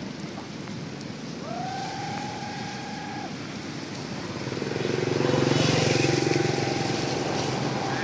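Street traffic: a motor vehicle passes, loudest about five to seven seconds in, and a horn sounds once for about two seconds near the start.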